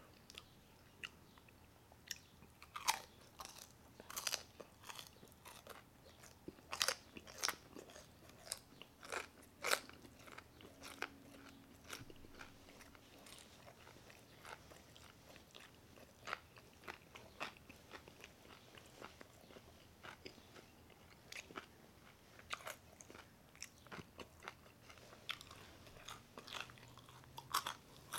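A person biting and chewing fried pork skin (chicharrón) topped with guacamole close to the microphone: sharp irregular crunches, most frequent in the first ten seconds, then sparser chewing.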